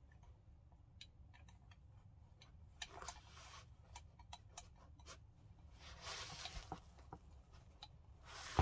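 Faint scattered clicks and light rubbing from small parts being handled and fitted into an airsoft rifle's lower receiver, with brief rustling handling noise about three seconds and six seconds in.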